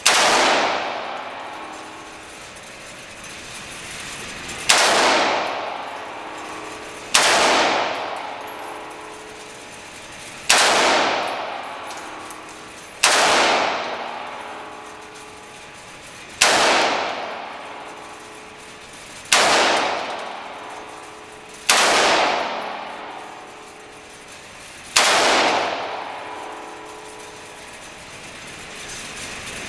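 AR-style rifle firing nine single, deliberate shots a few seconds apart, each crack followed by a long echo in the indoor range.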